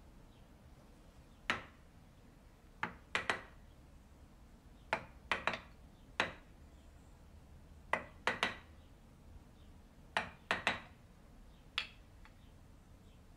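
Wooden carver's mallet striking a wooden-handled chisel into wood: sharp knocks, about fifteen in irregular groups of one to three.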